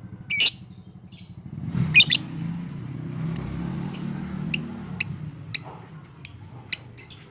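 Lovebird calling: two loud, harsh chirp bursts, then a run of short, sharp, high single chirps about twice a second. A low rumble runs underneath through the middle.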